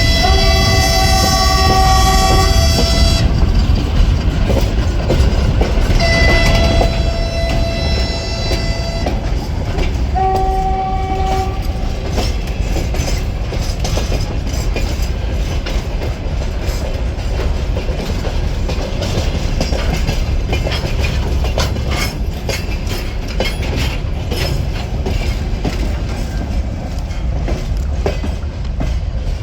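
TGM6 diesel-hydraulic shunting locomotive sounding its horn signals three times: two blasts of about three seconds each, then a short one about ten seconds in. After that the locomotive and its freight wagons roll past with a steady rumble and wheels clicking over the rail joints.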